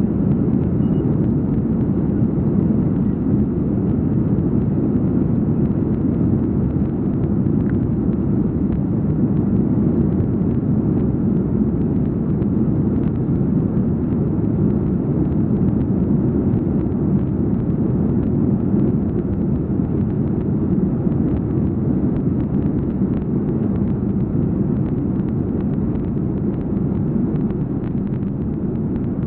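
Steady low rumble inside the cabin of an Airbus A340-300 at takeoff power: its four CFM56 engines and the airflow around the fuselage, easing slightly near the end.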